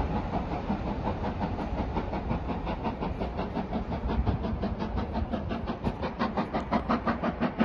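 Train running over the track: a steady rumble with a fast, regular clickety-clack of wheels, about four to five clicks a second, growing louder near the end.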